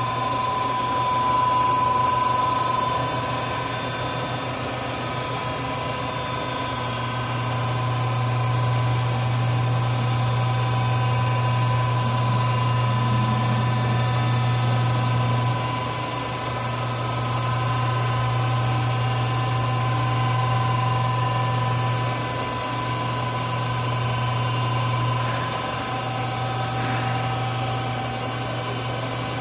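MAHO milling machine running: a steady low motor hum with a steady high whine over it. The hum grows stronger and eases off several times.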